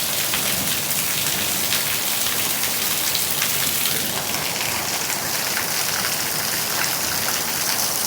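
Steady rain, a dense even patter of drops.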